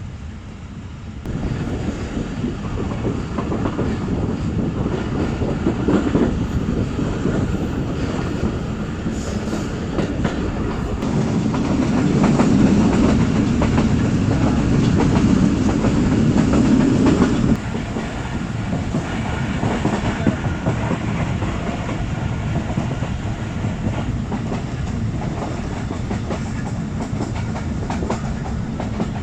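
Passenger train running along the track, its wheels clattering over rail joints with a steady rumble. A louder low rumble builds in the middle and cuts off suddenly.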